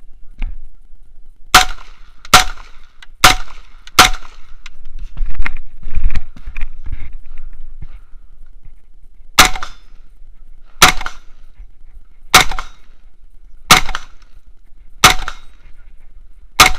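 Carbine shots: four quick shots about 0.8 s apart, then rustling and scuffing as the shooter moves position, then six slower, evenly spaced shots about a second and a half apart.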